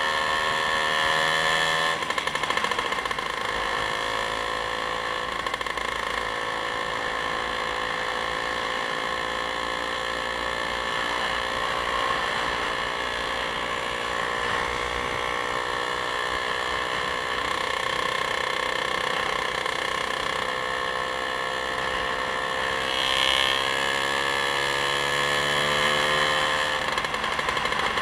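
Motorcycle engine running at road speed under a steady rush of wind. The engine pitch drops about two seconds in, then climbs slowly, and drops again near the end.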